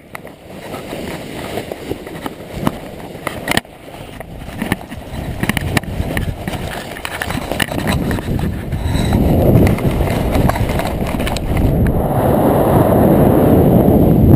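Paraglider launch run: irregular footfalls on grass and knocks for the first several seconds, then wind on the microphone that builds from about nine seconds in and grows steadily louder as the glider lifts off and picks up speed.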